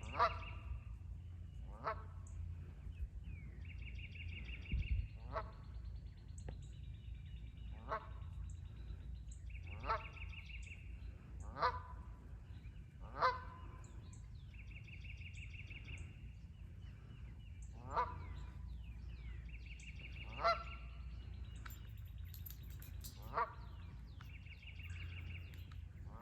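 Canada goose honking: about ten single short honks spaced a couple of seconds apart, some gaps longer. A higher, buzzy trill recurs every few seconds between them, over a steady low background rumble.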